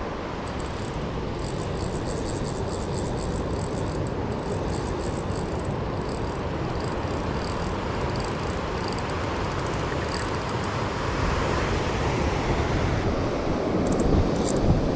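Steady wind noise rumbling on the microphone, with surf washing, growing a little louder near the end.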